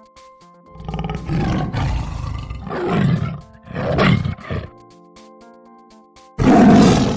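A large animal giving deep, rough roars four times, the last the loudest, over soft background music.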